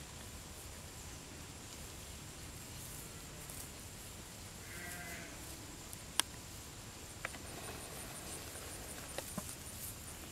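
One short, pitched animal call about halfway through, over a steady low background noise. A few sharp single clicks follow in the second half, the first of them the loudest sound.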